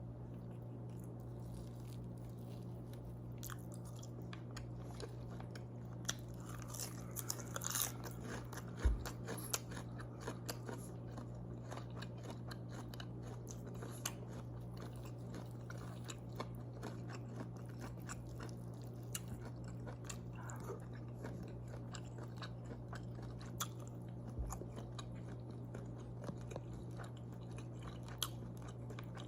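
A person chewing and biting crunchy food close to the microphone: many short, sharp crunches, busiest about a quarter of the way in, over a steady low hum.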